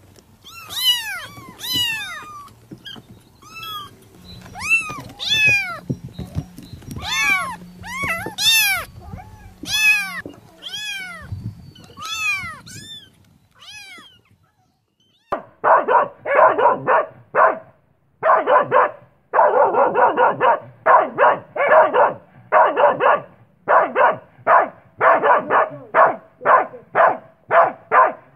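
Kittens meowing over and over, short high mews that rise and fall. They stop about halfway through, and after a brief pause a dog barks repeatedly in quick, short barks.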